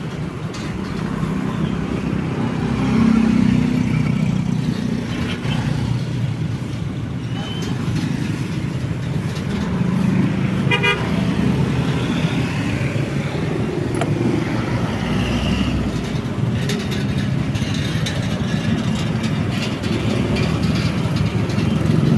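Road traffic passing: a continuous rumble of vehicle engines and tyres that swells and eases as vehicles go by, with a short car-horn toot about halfway through.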